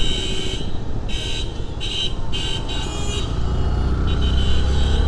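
Motorcycle riding in town traffic: a steady low rumble of engine and road noise, with a run of short, high vehicle-horn beeps over the first three seconds and a fainter one about four seconds in.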